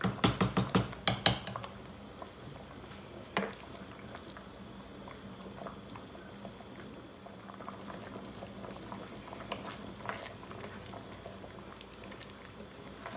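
Bamboo-shoot soup simmering in a pan with a steady bubbling. In the first second and a half a wooden spatula strikes the pan in a quick run of about eight knocks while stirring, knocks once more a few seconds later, and ticks faintly near the end.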